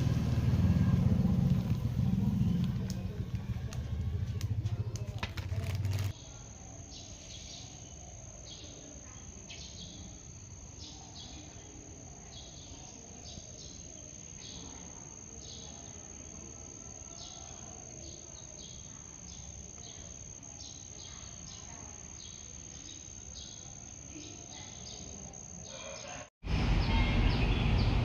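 Loud low rumbling noise, then an abrupt change about six seconds in to a steady high-pitched insect drone with short chirps repeating about once or twice a second. Near the end it cuts back to loud rumbling noise.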